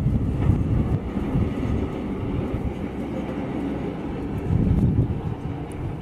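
Homemade band sawmill running, its small engine driving the band blade around motorcycle-wheel band wheels as the sawhead carriage is pushed along its rails toward a birch log. A steady low rumble, swelling louder about four and a half seconds in.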